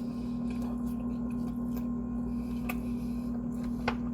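A steady low electrical-sounding hum, with two faint sharp clicks about two and a half and four seconds in.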